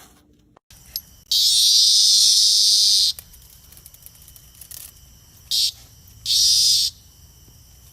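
A dog squealing in excitement, three high-pitched squeals: a long one of nearly two seconds, then a short one and one of about half a second.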